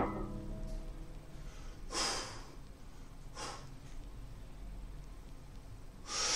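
Three short, forceful breaths from a lifter bracing under a loaded barbell before a heavy back squat: one about two seconds in, a lighter one a little later, and the loudest near the end.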